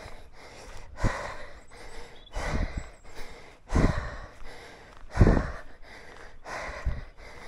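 A man breathing heavily while hiking, a loud breath roughly every second and a half, with low thuds under some of them.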